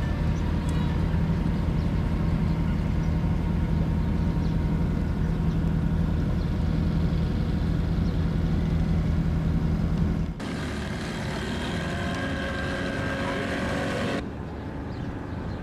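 Boat engine running steadily with a low, even hum. About ten seconds in the sound cuts abruptly to a different, higher-pitched engine drone, and changes again near the end.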